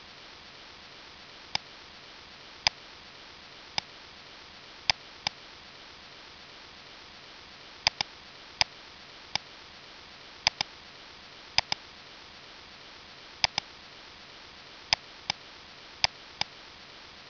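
Computer mouse button clicking, some single clicks and some quick double clicks, about eighteen in all, over a steady background hiss.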